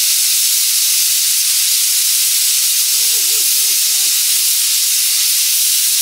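Pressure cooker venting steam through its valve in a loud, steady hiss. A faint voice, a yawn falling in pitch, comes about three seconds in.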